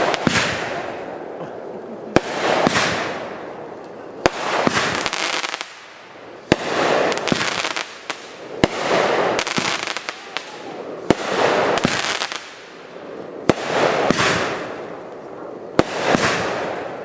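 Consumer aerial fireworks firing shot after shot, about one every two seconds. Each sharp launch crack is followed by a noisy burst lasting about a second.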